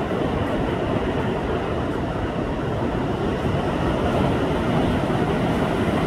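Pacific Ocean surf breaking in rows of whitecaps and washing up a sandy beach: a steady rushing roar that swells slightly about two-thirds of the way through.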